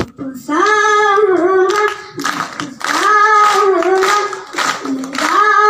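A boy singing a Hindi song into a handheld microphone in long, wavering held phrases. From about two seconds in, hands clap along in rhythm.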